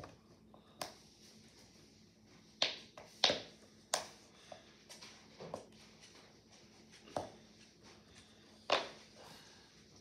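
Silicone pop-it fidget ball having its bubbles pressed in by fingers, giving about eight short, sharp pops at irregular intervals.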